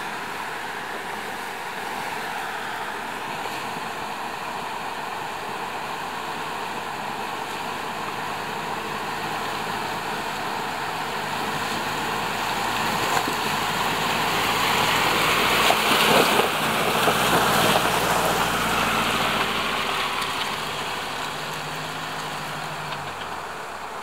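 A four-wheel drive's engine running as it drives through a shallow river crossing, with its tyres pushing and splashing through the water. It grows louder as the vehicle comes close, is loudest a little past the middle, then fades.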